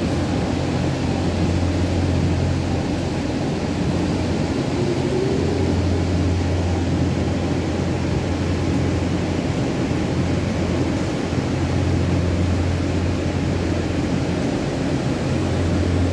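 Steady machine noise: a low hum over an even rushing hiss, the hum dropping away for a few seconds early on and again briefly later.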